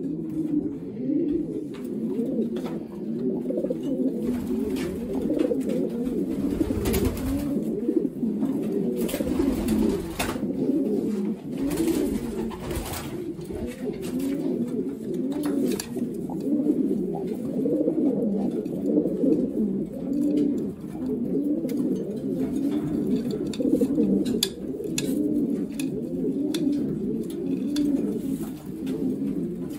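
Many racing pigeons cooing at once, a continuous overlapping warble from the birds in the loft's nest boxes. A few short knocks sound in the middle.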